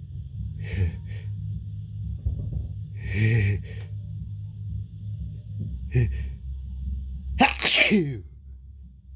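A man's build-up to a sneeze: short sharp breaths about one, three and six seconds in, then a loud "achoo!" near the end whose pitch falls away.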